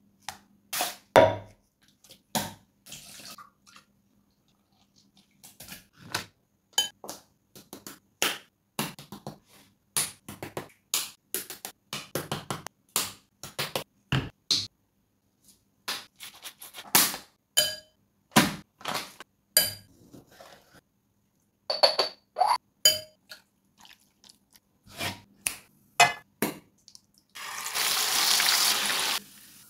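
Close-miked food-preparation sounds: a long series of separate clicks, taps and wet squelches from deveining raw prawns with a knife and handling ingredients and bottles on a wooden board. Near the end comes about two seconds of steady sizzling as spiced prawns go into hot oil.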